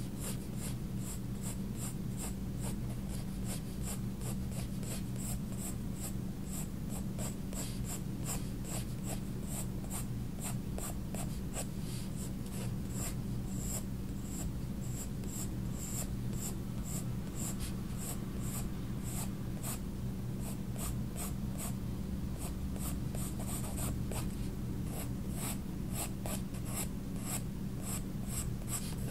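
Faber-Castell Polychromos colored pencil scratching across sketchbook paper in a quick, steady run of short shading strokes, about two to three a second, over a faint steady low hum.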